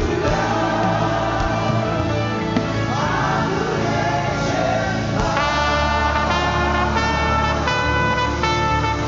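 Live gospel worship music: singers over a band. About five seconds in, the voices give way to an instrumental line of short, steady notes over a sustained bass.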